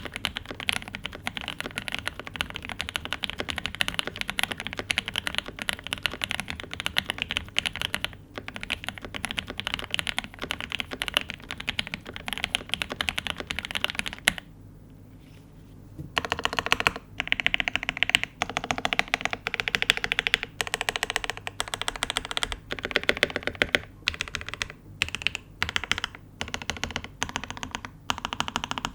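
Typing on a Cyberboard 75% mechanical keyboard with lubed C3 Banana Split linear switches, an aluminium plate and GMK Ursa keycaps. It is a fast, steady run of keystrokes that stops for about a second and a half midway, then goes on in shorter bursts.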